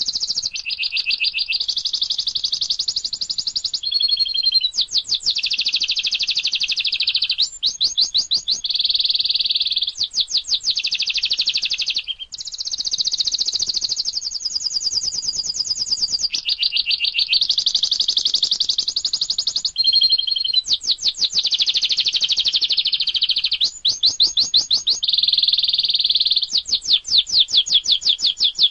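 Songbird recording mixing murai air, cililin, Eurasian tree sparrow and canary song: long, dense high trills alternate with fast runs of sharp chips, phrase after phrase without a pause.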